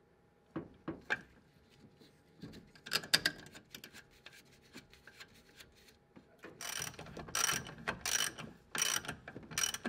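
Ratchet wrench clicking as the master cylinder's mounting nuts are run down onto the brake booster studs. A few scattered clicks and knocks come first, then near the end five rasping strokes about two-thirds of a second apart.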